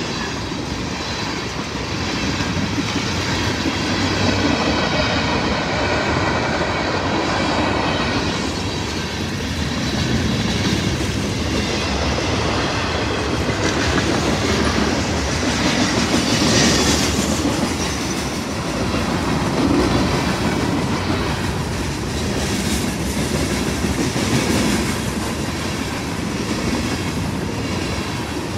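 Freight cars (tank cars and boxcars) rolling past, their steel wheels clacking over the rail joints above a steady rumble.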